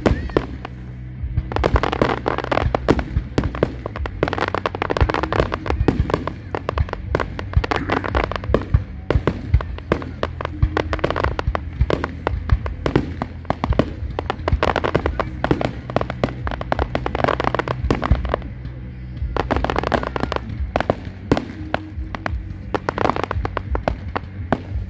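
Fireworks display: clusters of rapid crackling and popping come every couple of seconds, over music playing throughout.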